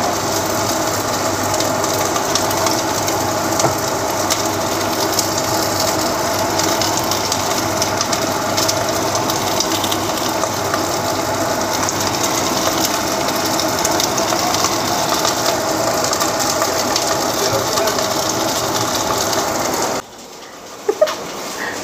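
Floured lamb tenderloin pieces sizzling in hot olive oil in a cast iron pot as they brown, a dense sizzle with many small pops. The sizzle cuts off suddenly near the end.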